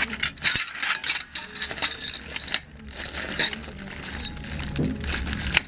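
Small hard parts clinking and knocking together as they are handled and rummaged through, a string of short irregular clicks.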